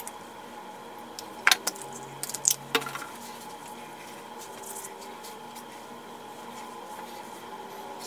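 A few sharp clicks and clinks, packed between about one and a half and three seconds in, from handling a small cosmetics bottle and its cap. A faint steady hum runs under them.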